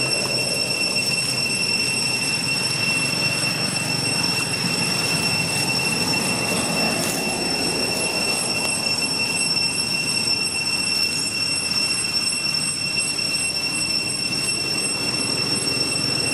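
A steady, high-pitched whine held at one unchanging pitch with several overtones, over a rough low rumble.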